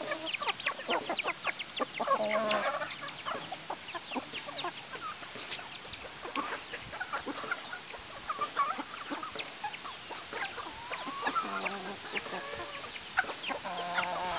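A flock of chickens clucking, with a steady stream of quick high chirps. A few longer, drawn-out hen calls come about two seconds in, again around twelve seconds and near the end.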